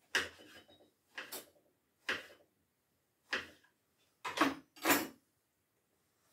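Kitchen knife cutting slices from an orange onto a cutting board: six sharp cuts about a second apart, the last two the loudest.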